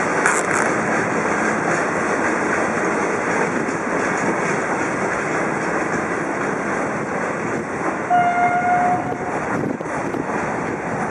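Ballast-recycling track maintenance train (Schotterwaschanlage) rolling past on the rails, a steady noise of wheels and machinery going by. About eight seconds in, a single steady tone sounds for about a second.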